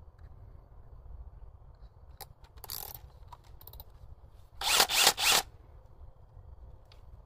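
Cordless drill with a bit fitted: a short zip-like burst, then the loudest sound, under a second of rasping in three quick pulses.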